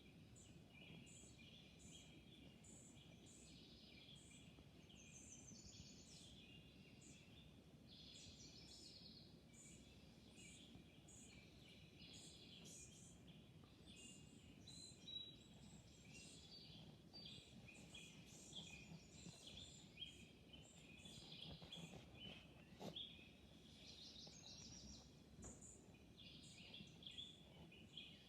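Faint chorus of small songbirds chirping and twittering, many short calls overlapping without pause, over a low steady hum.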